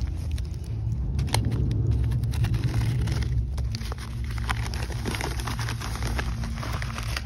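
Kraft paper mailer being handled and opened, the paper crinkling with scattered sharp clicks, over a steady low rumble.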